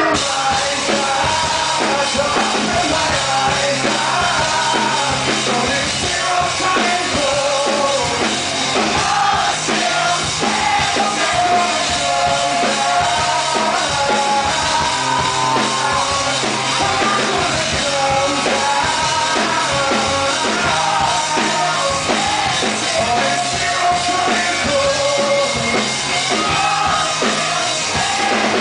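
Live rock band playing, with a male lead voice singing over a drum kit and amplified instruments.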